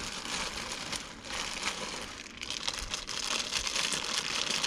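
Clear plastic accessory bags crinkling and rustling as hands handle them and lift out a bagged cable.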